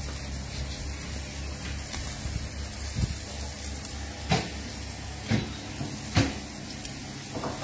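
Food sizzling steadily on the hot bars of a gas barbecue, with five short, sharp knocks spread over the last few seconds.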